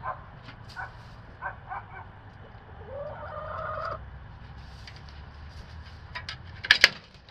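Domestic hens clucking: a few short calls, then one drawn-out call about three seconds in. A couple of sharp taps near the end.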